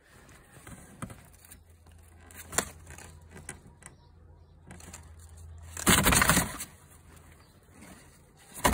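A common myna moving about inside a cardboard box: a light knock, then a loud brief scuffling flurry about six seconds in as the bird flaps against the cardboard.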